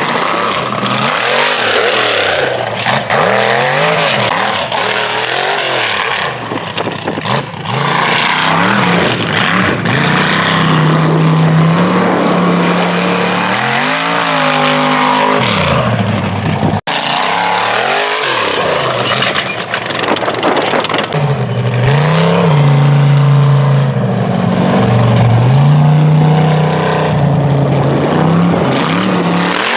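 Mega mud truck's engine revving hard, its pitch rising and falling over and over as the driver works the throttle. The sound breaks off for an instant just past halfway.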